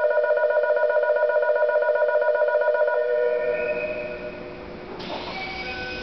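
An electronic station departure bell rings with a fast warbling tone and cuts off about three seconds in, leaving the low rumble of the waiting train. About five seconds in comes a sudden hiss with a few short tones.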